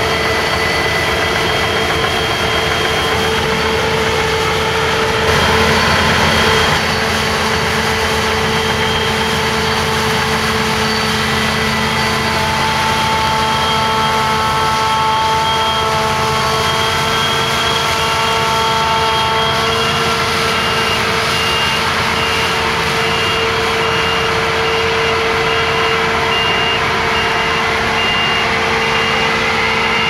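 Claas Lexion 760 combine harvester working flat out in rice: a steady, loud run of diesel engine and threshing drives with a high whine on top. Near the end a run of evenly spaced high beeps sounds over it.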